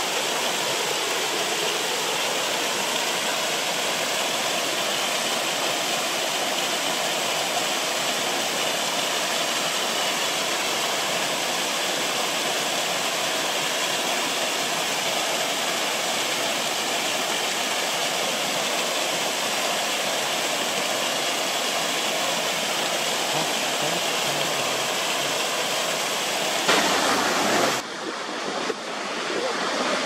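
Steady rushing and splashing of a small cascading waterfall tumbling over rock ledges. About two seconds before the end it cuts abruptly to a different, more uneven rush of water.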